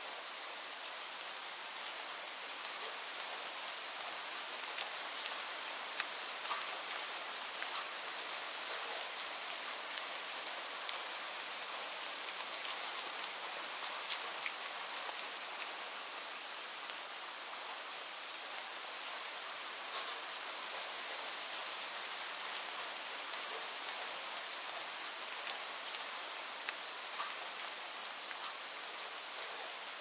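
Steady rain: an even hiss with many small drops tapping through it.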